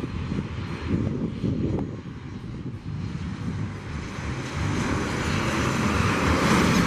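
Boeing 737-700 Business Jet on final approach, its CFM56-7B turbofan engines running at approach power. The jet noise grows louder from about halfway through as the aircraft nears, and is loudest near the end.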